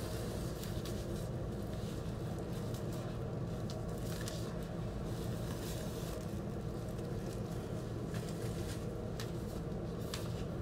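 Clear plastic sleeve and cardboard record packaging rustling and crinkling as a gatefold vinyl record is handled, with scattered faint clicks, over a steady low background hum.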